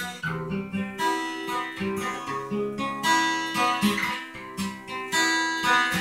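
Gibson Hummingbird acoustic guitar strummed in a steady rhythm of chords, an instrumental passage with no singing.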